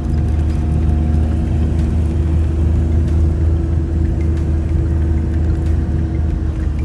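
Motor vehicle driving at a steady speed: a continuous low engine and road drone with a few steady hum tones over it, no change in pitch.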